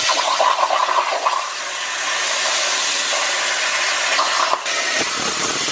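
Plasma cutting torch on a CNC plasma table cutting through quarter-inch steel: a loud, steady hiss of the air-plasma arc, with a brief dip just past four seconds.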